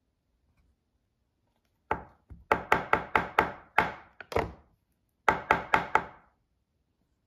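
Metal cake pan full of chocolate cake batter rapped against a stone countertop to knock out air bubbles: a quick run of about eight sharp knocks, a short pause, then four more.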